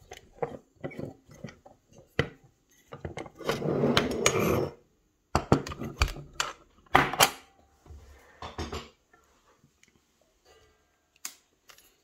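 Metallic clicks, knocks and rattles as a steel-cased rim lock and lock-picking tools are handled, with a longer rattling scrape about four seconds in and a run of sharp clicks soon after.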